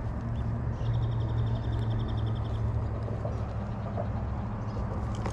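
Steady low hum of city traffic. About a second in, a rapid high-pitched trill lasts a little under two seconds.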